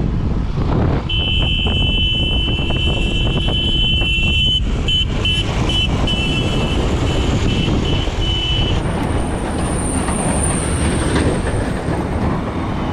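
A motorcycle running on the move, with steady engine, road and wind noise. A steady high-pitched tone joins it about a second in, breaks into short pulses partway through, and stops near nine seconds.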